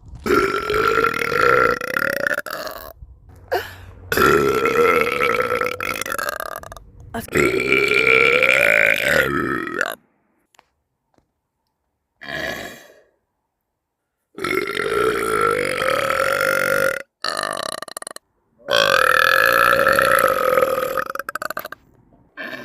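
A run of long, loud burps, most lasting two to three seconds, with a shorter one near the middle. They are separated by abrupt silent breaks.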